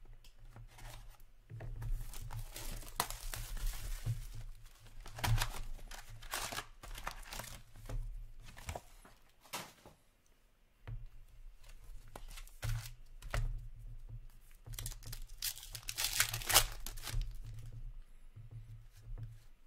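Trading-card pack wrappers being torn open and crinkled by hand, with cards handled between packs. The crinkling comes in two long runs, with a short lull about halfway.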